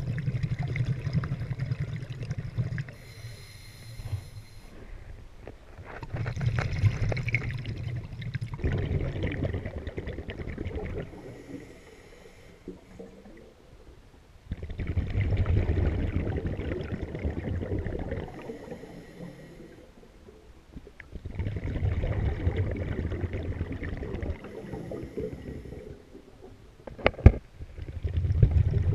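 A scuba diver breathing through an Oceanic regulator, heard underwater: every six to seven seconds an exhalation sends out a few seconds of rumbling, gurgling bubbles, and between them each inhalation draws a short hiss through the regulator. One sharp click comes near the end.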